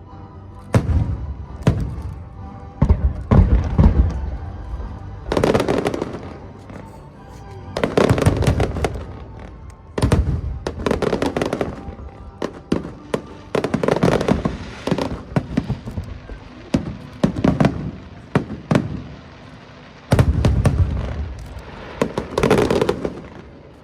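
Aerial fireworks display: a continuous string of sharp bangs and low booms, with dense crackling clusters every few seconds.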